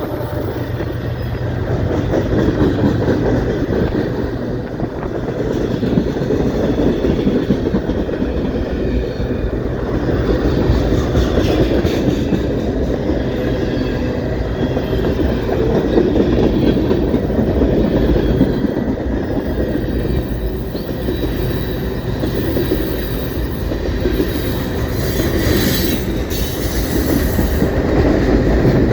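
A long train rolling past, its cars' wheels rumbling and clacking steadily on the rails.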